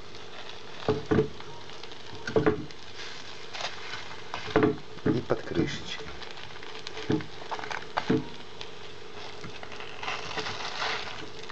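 Frozen meat-filled crepes sizzling steadily in a frying pan over low heat. A fork knocks and scrapes against the pan as the crepes are turned, making about ten short clicks.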